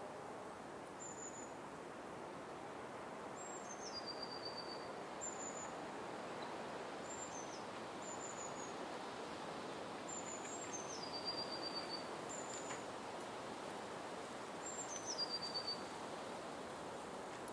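Forest ambience: a bird repeating short high whistled calls every second or two, several of them stepping down in pitch to a lower held note, over a steady background hiss.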